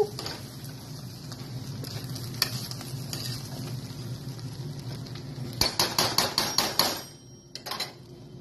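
A spoon stirring and scraping nearly dry white rice in a stainless steel saucepan, over a steady faint hiss. Near the end comes a quick run of about eight sharp taps of the utensil against the pot.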